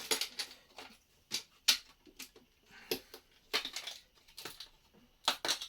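Plastic Lego bricks being pulled apart and set down: irregular sharp clicks and short clatters, about a dozen, with quiet gaps between them.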